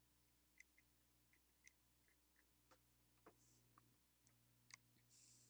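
Near silence with faint, scattered small clicks and ticks as a soldering iron is handled and brought to a circuit board. There are two short soft hisses, one past the middle and a slightly longer one near the end.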